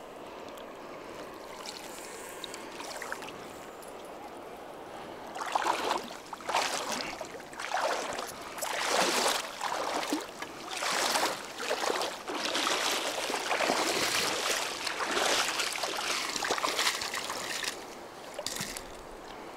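Steady hiss of water, then from about five seconds in a run of splashes, roughly one a second, as someone wades through shallow water and a hooked fish is scooped into a landing net.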